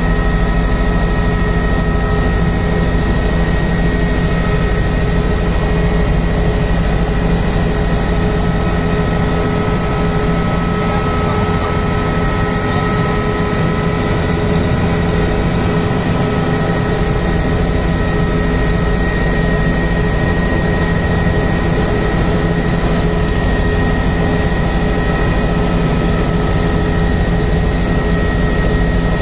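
Helicopter in flight: a steady, unchanging turbine whine and rotor drone, with several constant tones over a heavy low rumble.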